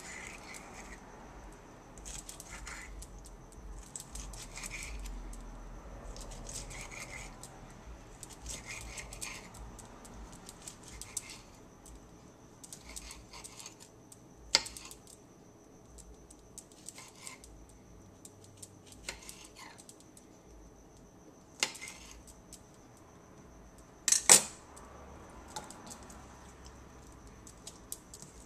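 Knife chopping red bell pepper into dice on a kitchen counter: short chopping strokes every second or two, with a few sharper knocks of the blade, the loudest about 24 seconds in.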